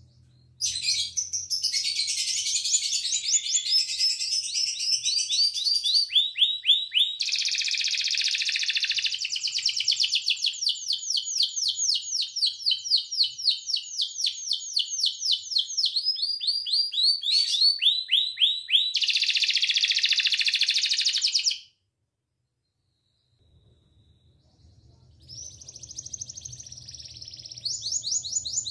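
Young canary singing in fast trills of rapidly repeated notes, changing from one trill to the next. The song cuts off suddenly about 22 seconds in, and after a short silence it resumes over a low hum.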